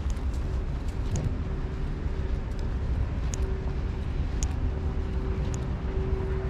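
Steady low engine rumble with a constant hum, and a few light ticks about a second apart.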